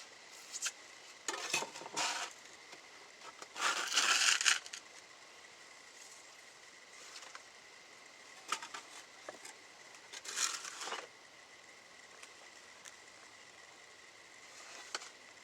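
Damp wood ash being scraped and scooped off the floor of a kiln firebox: a handful of short gritty scrapes, the loudest about four seconds in.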